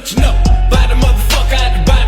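Hip hop–style music with a heavy bass beat and a vocal line, the full beat coming back in just after the start following a brief break.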